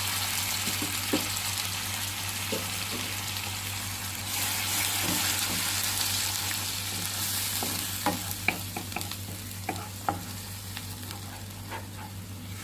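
Spinach puree sizzling in hot butter in a pan, a steady hiss that swells in the middle. In the second half a spoon stirring clicks and taps against the pan.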